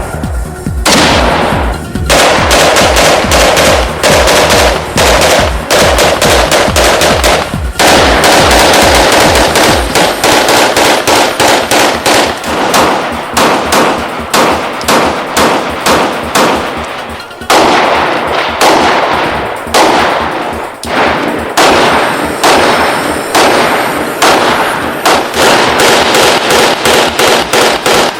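Rapid gunfire: long strings of shots coming several a second, broken by a few brief pauses.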